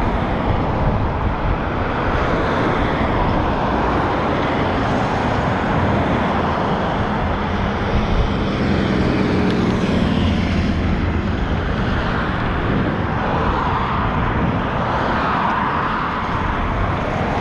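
Road traffic driving past a wide intersection: a steady rush of passing cars, with a heavier vehicle's engine drone standing out about halfway through as a box truck goes by.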